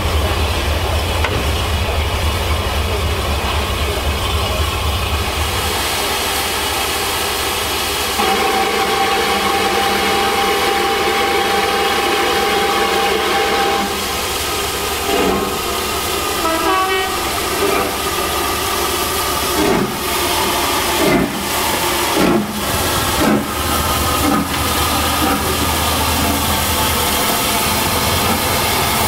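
A deep engine rumble for the first few seconds, then a long held whistle note, then LSWR S15 4-6-0 steam locomotive No. 506 starting away from a stand. Its exhaust beats come slowly, about one a second and gradually quickening, over the hiss of steam from open cylinder drain cocks.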